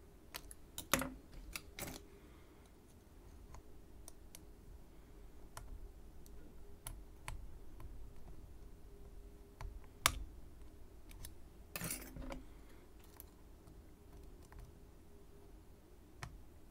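Small, sparse clicks and ticks of lock picking tools working the pins of a Schlage Everest C123 pin-tumbler lock cylinder, with a few louder clicks about a second in, at two seconds, and around ten and twelve seconds in.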